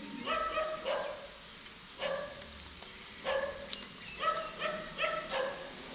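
A dog barking repeatedly: short barks that come in quick clusters of two or three, about ten in all.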